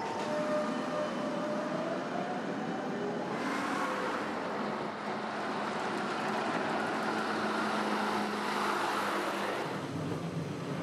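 City street traffic: a steady hum of vehicles, with one passing vehicle that swells from about three seconds in, peaks near the end and drops off suddenly.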